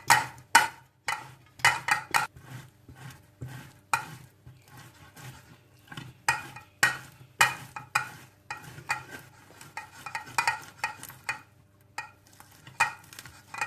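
Potatoes being grated by hand on a metal grater: repeated short scraping strokes, roughly two a second, somewhat irregular.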